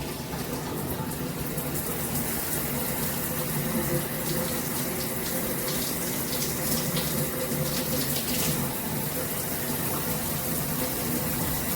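Water spraying steadily from a rainfall shower head and splashing below, an even rush with a faint low hum underneath.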